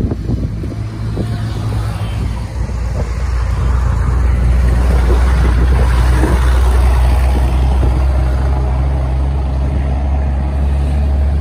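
A motor vehicle's low engine sound that builds a few seconds in, holds loudest through the middle, then eases slightly near the end, as when a vehicle passes close by.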